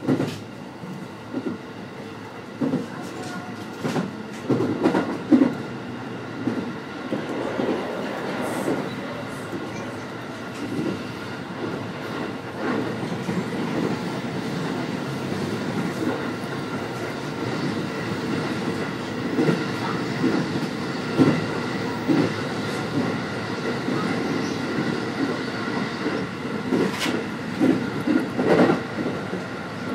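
JR West Special Rapid electric train running at speed, heard from inside behind the cab: wheels knocking over rail joints and points in irregular clusters, over a steady running rumble with thin steady high tones.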